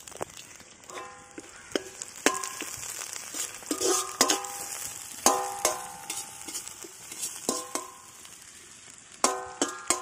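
Steel skimmer ladle stirring onions and green chillies frying in oil in an iron kadai. The ladle knocks and scrapes against the pan about ten times, each knock ringing briefly, over a steady sizzle.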